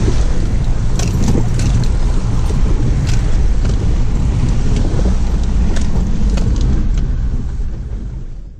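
Inside the cab of an older four-wheel drive driving slowly over a rocky creek crossing and dirt track: steady engine and road rumble with frequent knocks and rattles from the body, fading out near the end.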